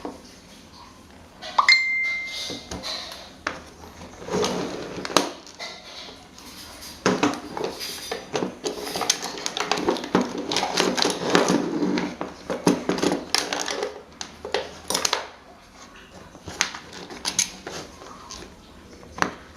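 Metal parts clinking and knocking as they are handled and worked, with a short ringing ping about two seconds in and a busier run of knocks in the middle.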